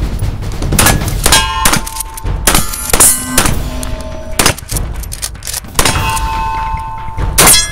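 Shotguns firing in a string of about eight shots. Several shots are followed by the ringing clang of struck steel targets.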